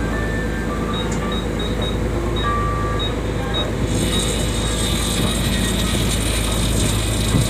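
Boat engine running with a steady low rumble. A broad hiss comes in about halfway through.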